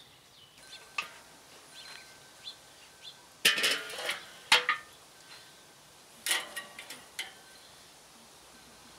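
Metal clanks and clinks from a Weber kettle grill: the lid is lifted off and hooked on the side of the bowl, then the cooking grate is worked over to lift out the tri-tip. The loudest clatter comes about halfway through, with a quicker run of clinks near the end.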